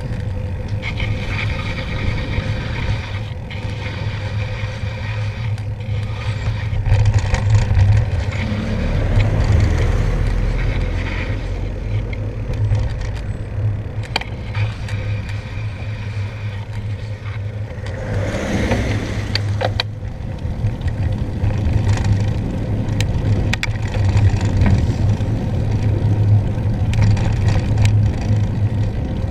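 Riding a bicycle on a wet road: wind rushing over the handlebar camera's microphone with tyre noise, a steady low rumble. A louder whoosh rises and falls about two-thirds of the way through.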